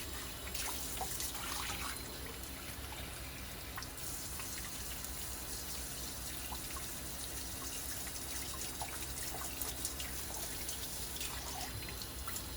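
Water running steadily from a tap, with drips and trickling, as a part is rinsed under it.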